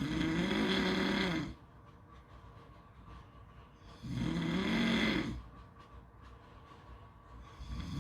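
Snoring, one snore about every four seconds. Each snore is a pitched drone of about a second and a half that rises and then falls in pitch: one at the start, one about four seconds in, and a third beginning near the end.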